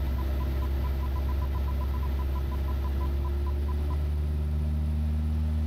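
Dynon angle-of-attack audio warning beeping in a pilot's headset over the steady drone of a Van's RV-7's engine. Short beeps at one pitch repeat faster and slower as the angle of attack changes in slow flight, near the stall, then stop about four seconds in as the engine note shifts.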